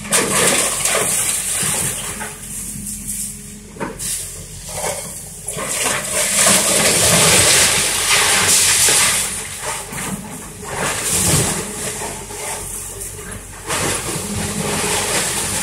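Link-Belt excavator's diesel engine running steadily while its bucket tears into a wooden house, with repeated cracking and crashing of splintering wood and falling debris, loudest from about six to nine seconds in.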